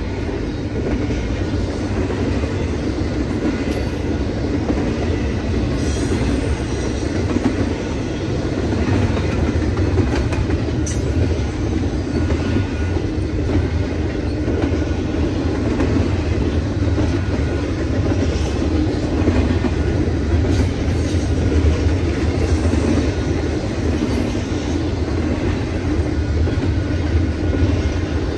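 Double-stack intermodal freight train's well cars rolling past at a steady speed, a continuous rumble of steel wheels on the rails.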